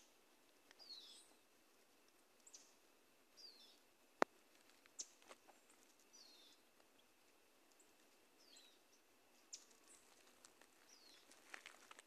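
Faint, high, short chirping call falling in pitch, repeated about every two to three seconds, with a sharp click about four seconds in and a few more clicks near the end.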